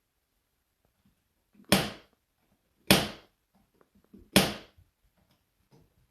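Three sharp thumps, each dying away within a fraction of a second, about one to one and a half seconds apart.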